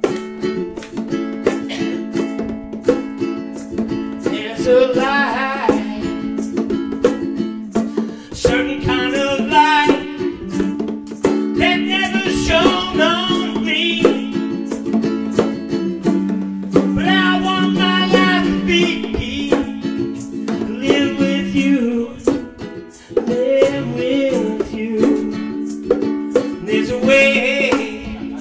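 Live acoustic band: a strummed small acoustic string instrument and hand-played bongos keep a steady rhythm, and a man sings in phrases from about four seconds in.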